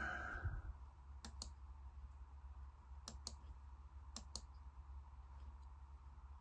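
Computer mouse clicking: three quick double-clicks a couple of seconds apart, faint, over a low steady room hum.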